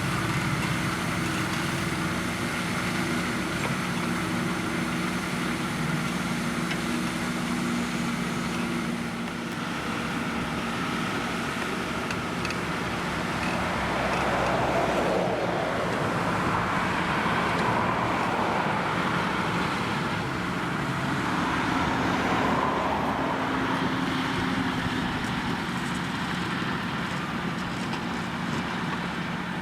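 Farm tractor engines running steadily during field work, with a broader, louder spell of engine and machinery noise in the middle that rises and falls.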